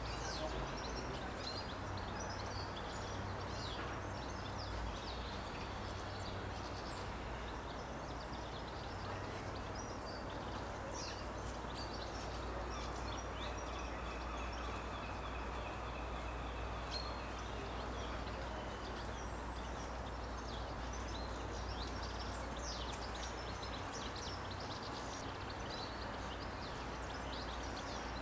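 Outdoor woodland ambience: small birds chirping in short, scattered calls over a steady low background hum, with a longer, steadier call for a few seconds around the middle.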